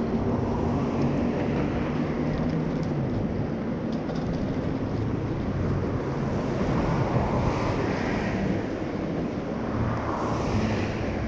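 City street traffic: a steady noise of cars and other vehicles passing on a wide road, with a low engine hum in the first few seconds.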